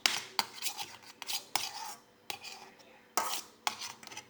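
Spoon clinking and scraping against a dish while scooping agar-agar jelly: a string of irregular sharp clicks and short scrapes.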